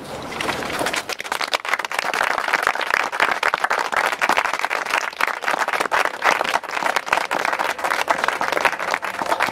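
Audience applauding: many hands clapping, starting just as the reading ends and swelling over the first second or two into steady, dense clapping.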